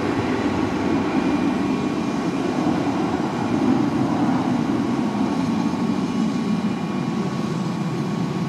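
A jet airliner's engines rumbling steadily as it climbs away after take-off, heard from a distance, with a faint steady whine over the rumble.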